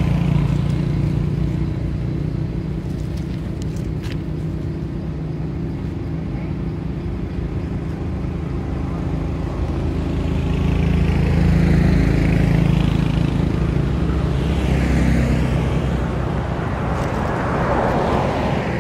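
Road traffic: a steady low engine hum with motor vehicles passing close by, the sound swelling and fading as each goes past, loudest about ten seconds in.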